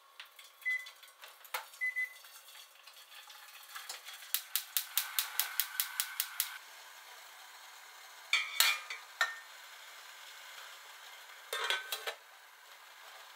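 Hot water poured from a kettle into a metal pan, with a fast run of sharp clicks, about six a second, as the gas burner is lit. Later a glass dish clinks as it is set down in the pan, and a glass lid clatters as it is put on for steaming.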